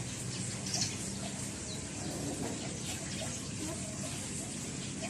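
Steady rain falling, an even hiss with scattered drop ticks, with faint bird calls in the background.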